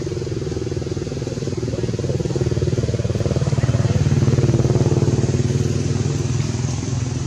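Motorcycle engine running, with a steady pulsing note that grows louder toward the middle and then eases off.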